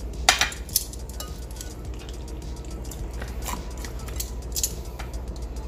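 Metal tongs clicking and clinking against a glass bowl while working oil into a marinated chicken: several sharp clinks, the loudest two in the first second.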